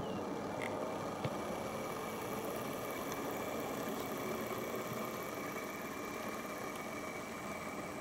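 Model Class 08 shunter locomotive running on the track, a steady hum with a faint high whine, and a couple of light clicks about a second in as it uncouples from the coach and draws away.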